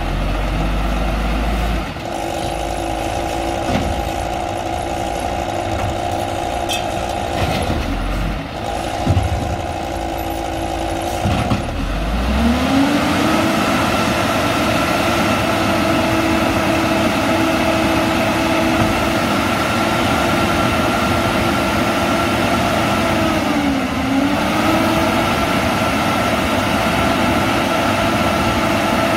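Diesel engine of an Peterbilt 310 refuse truck with an Amrep automated side loader, running at idle with a few knocks, then revving up smoothly about twelve seconds in and holding a high steady speed to drive the hydraulics, with one brief dip in speed near the end.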